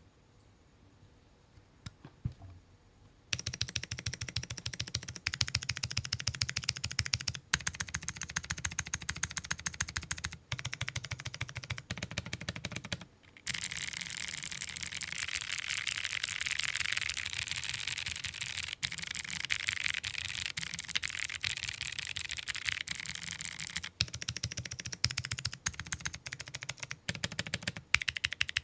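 Rapid typing on a mechanical keyboard fitted with Akko Creamy Cyan clicky switches, transparent PC housings with a click jacket on the stem, in a top-mounted aluminium-plate board with no foam. Each keystroke gives a sharp, clacky click. The typing starts about three seconds in and is fastest and most continuous through the middle.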